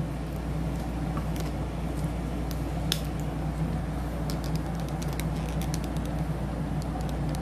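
Steady low background hum of a small room, with a few faint, light clicks and taps scattered through it.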